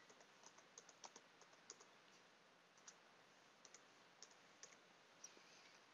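Faint, irregular keystrokes on a computer keyboard as a word is typed, a dozen or so light clicks over near-silent room tone.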